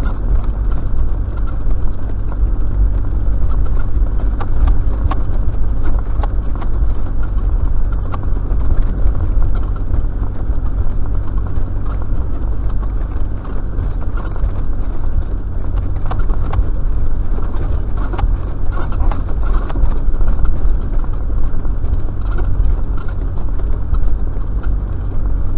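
Four-wheel drive driving along a rough sandy desert track, heard from inside the cab: a steady low drone of engine and tyres with frequent knocks and rattles as the vehicle bounces over the ruts.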